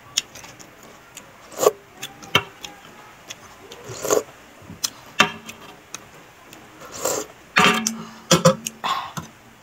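A person eating from a metal spoon. About four seconds in she slurps a spoonful of broth, and wet mouth clicks, lip smacks and short hums follow at irregular intervals, about one a second.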